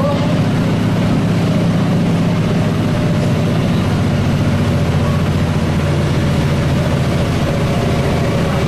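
The MWM 6.10 TCA six-cylinder turbodiesel of a Volksbus 17-210 OD bus running steadily, its low pitch holding even with no revving up or down.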